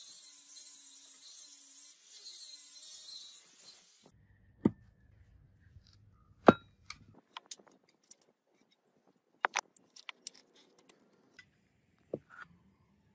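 Angle grinder with a flap disc grinding a steel axe head, a steady high, wavering whine that stops about four seconds in. After it come scattered sharp knocks and clinks of steel pieces set against a wooden log, two of them much louder than the rest.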